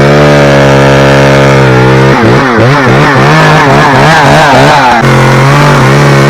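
Chainsaw running at speed. For about three seconds in the middle its pitch dips and wavers, the way a saw does when it loads up in a cut, then it steadies again.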